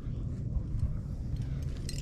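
Steady low rumble with a few light metallic clinks of climbing gear, carabiners and cams on the rack, growing sharper near the end.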